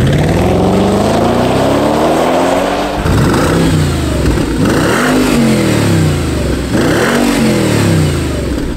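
Audi A6 C6's 4.2-litre V8 revved through its exhaust. The pitch climbs over the first three seconds, then two quicker revs peak about halfway and near the end, each falling back toward idle.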